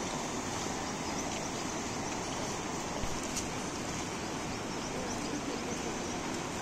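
Steady rushing of flowing river water, an even noise with no distinct events.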